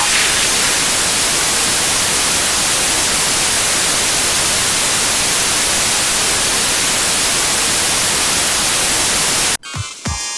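Steady hiss of TV static (white noise), cutting off suddenly near the end as electronic music with a beat comes in.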